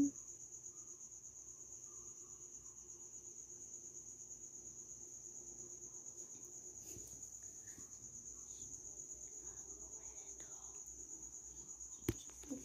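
Cricket trilling steadily, a continuous high pulsing tone, with a sharp click near the end.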